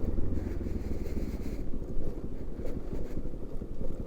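Motorcycle engine running at low revs while riding a rough dirt track, its fast firing pulses steady throughout, with wind noise on the helmet camera's microphone.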